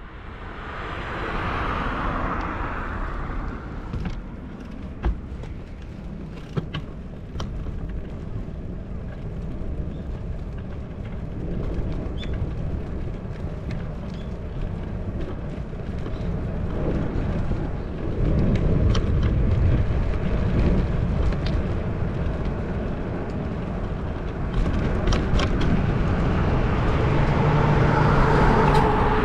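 Riding noise heard on a bicycle-mounted action camera: steady wind and road rumble with sharp clicks now and then. It fades in over the first two seconds, and passing motor traffic swells louder in the second half.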